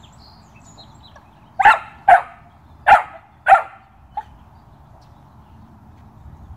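A 13-week-old Belgian Malinois puppy barking four times in about two seconds, loud and sharp, then giving one short, much quieter yip.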